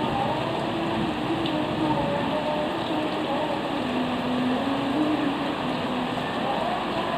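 Heavy rain falling steadily, a constant hiss. Beneath it a faint low droning tone slides slowly up and down in pitch.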